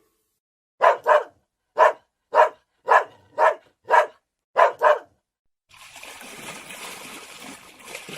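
A dog barking: about nine short barks over four seconds, some in quick pairs. Near the end a steady rushing noise begins.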